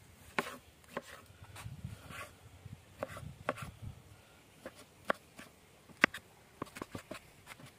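Chef's knife chopping tomatoes on a wooden cutting board: about a dozen sharp, irregular knocks of the blade meeting the board, the loudest about six seconds in.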